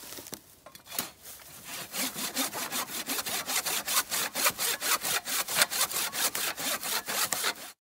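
Hand saw cutting through a dry, weathered dead log in quick, even back-and-forth strokes. It starts faintly, grows louder after about two seconds and cuts off suddenly near the end.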